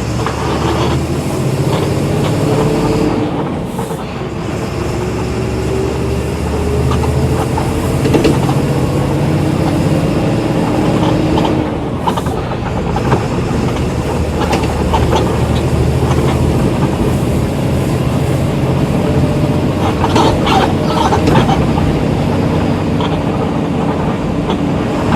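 Volksbus 17.230 EOD bus engine pulling the bus along, with a whine that rises in pitch as it gathers speed and drops back twice. Body rattles and clatters come in toward the end.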